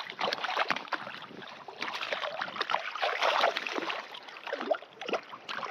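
Shallow water sloshing and splashing in uneven, irregular splashes.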